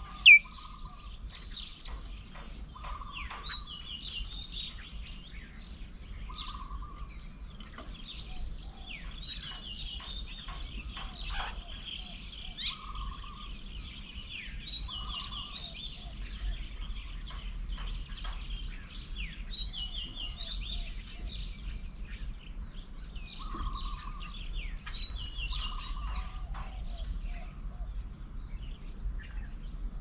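Several wild birds calling: a short pulsed call repeated every few seconds and many higher chirps, over a steady high-pitched insect drone. A brief sharp sound just after the start is the loudest moment.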